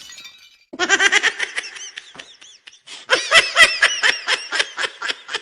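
The ringing tail of breaking glass fades out, then a high-pitched laughing sound effect starts: quick repeated ha-ha pulses, a short pause, and a second, longer run of laughter from about three seconds in.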